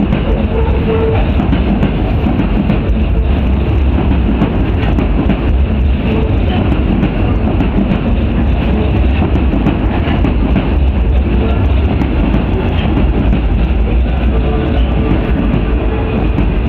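Osaka Metro 21 series subway train running past along the platform track, with a steady, loud rumble of wheels on rail.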